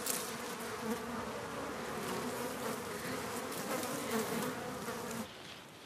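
Buzzing hum of a flying insect, wavering slightly in pitch, that stops about five seconds in.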